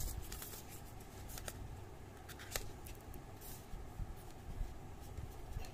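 Cardboard phone packaging being handled: a scatter of light clicks, taps and scrapes as the box sleeve and the paper card insert are slid and opened.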